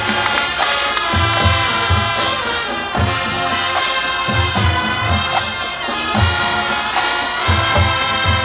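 High school marching band playing: brass section sounding full chords over a steady beat of bass drums.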